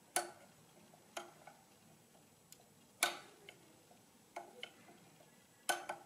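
Number wheels of a Summira-made Countess adding machine for British currency being stepped round with a screwdriver, the mechanism giving a sharp click at each step. About six clicks come at irregular intervals, the last one doubled.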